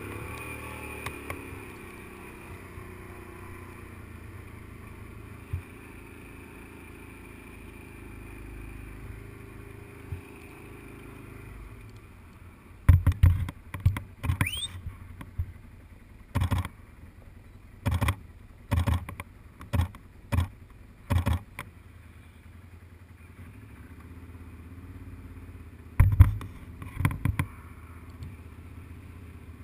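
Quad (ATV) engine running steadily over rough sand. Partway through comes a series of loud, sharp thumps, about ten in eight seconds, with a few more a few seconds later.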